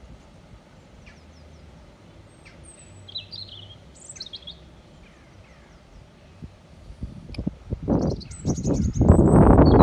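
Small birds chirping and twittering in short high calls, then from about seven seconds in, loud irregular gusts of rumbling noise: wind buffeting the microphone.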